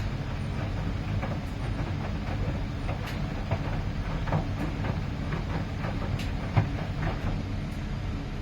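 2011 Miele PW 6080 commercial washing machine running: a steady low rumble from the turning drum, with irregular clicks and knocks throughout and a sharper knock about six and a half seconds in.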